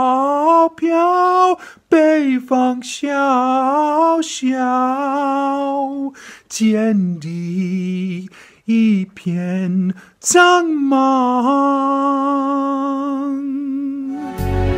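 A man singing solo and unaccompanied, in long held notes with strong vibrato. The phrases are broken by short breaths, and the middle phrases are sung lower.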